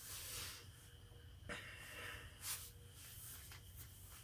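Quiet room tone with a steady low hum, broken by a few short breathy hisses and a sharp click about a second and a half in: small sounds of a person breathing and shifting at a desk.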